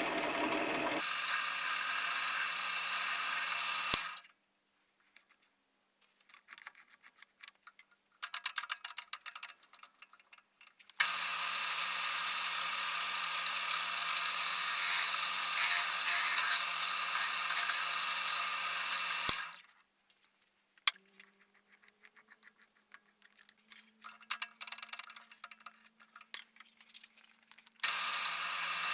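A small electric power tool running steadily with a constant hum and hiss in stretches of a few seconds, each starting and stopping abruptly, with faint clicks and scraping of handling in the quiet gaps between.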